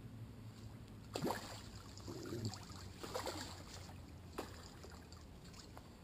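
Hooked barbel splashing at the water's surface as it fights on the line, three separate splashes about a second, three seconds and four and a half seconds in.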